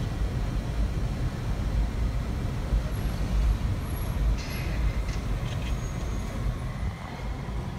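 Low, steady rumble of a car driving slowly in city traffic, heard from inside the cabin. A short hiss comes about four and a half seconds in.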